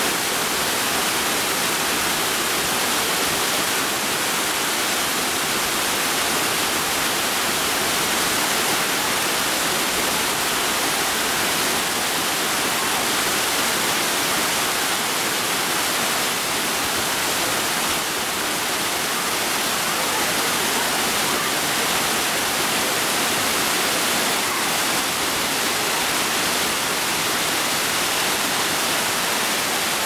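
Waterfall pouring over rock into a plunge pool: a steady, dense rush of water.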